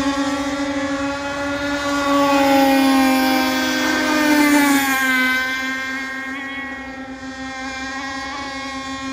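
Fast RC racing boat's motor running at high speed as the boat passes, a steady whine that dips in pitch and fades a little about five seconds in.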